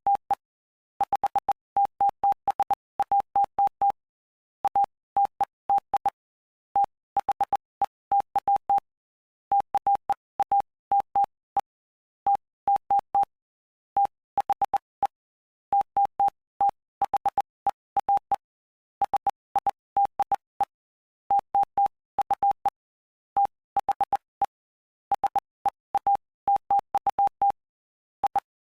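Morse code: a single steady tone keyed on and off in short dots and longer dashes, in letter and word groups separated by brief pauses, sending the text of the Gospel of Mark, chapter 5.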